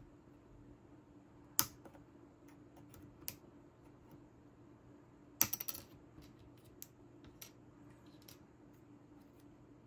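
Plastic laptop keycaps being pried off with a thin metal tool: a few sharp clicks and snaps, the loudest cluster about halfway through, with lighter ticks of the tool against the keys. A faint steady hum runs underneath.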